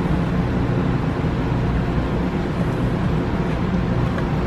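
A steady engine drone at a constant pitch, with no change in speed.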